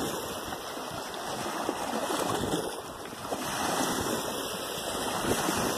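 Steady rushing noise of wind on the microphone and water, easing slightly about three seconds in and then swelling again.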